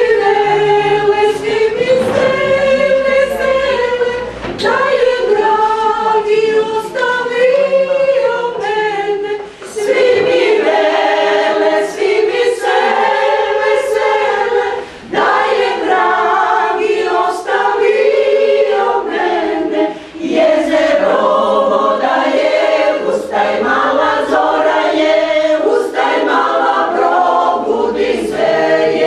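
Small women's choir singing a cappella in harmony, in sustained phrases of about five seconds with a short breath between each.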